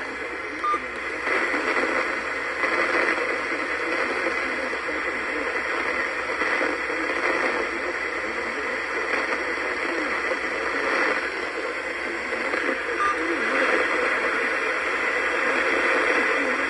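Steady hiss of radio static from a receiver.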